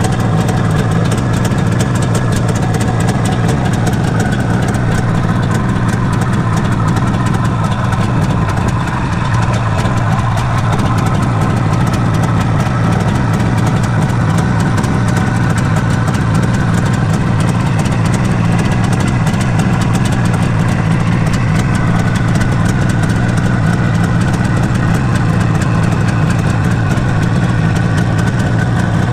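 1979 Suzuki GT550's air-cooled two-stroke three-cylinder engine idling steadily.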